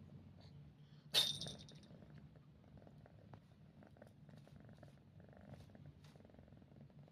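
Domestic cat purring with a steady low purr, broken about a second in by one short, sharp sneeze.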